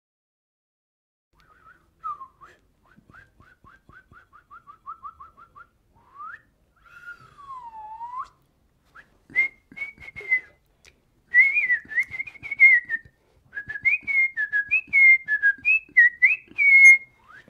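Whistling: a run of quick short rising chirps, then a long swooping note that dips and comes back up, then a busier string of wavering notes from about halfway through, with faint clicks underneath.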